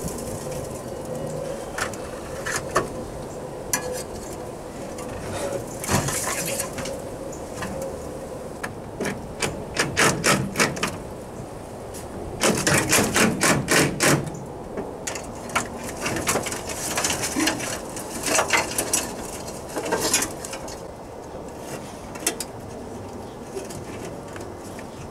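Metal knocks and clanks from tools working parts off a rusted-out car body, with two runs of quick strikes near the middle at about four a second.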